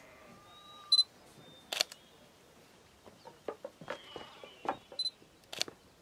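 Two short, high electronic beeps about four seconds apart, each followed under a second later by a sharp click, with faint light ticks in between.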